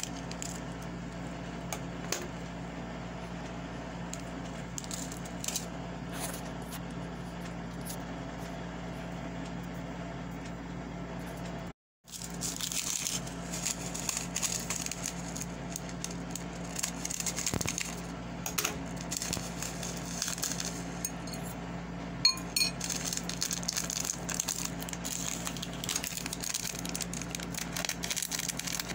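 A metal fork clinks and scrapes against a glass bowl as instant noodles are mixed. Foil seasoning sachets crinkle and seasoning is shaken out, over a steady low hum.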